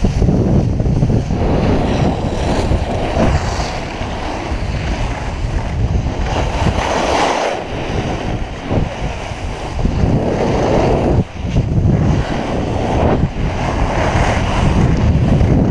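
Wind noise on a GoPro Hero 3+ microphone while skiing downhill, mixed with skis scraping over granular spring snow. The rushing noise swells and eases every second or two.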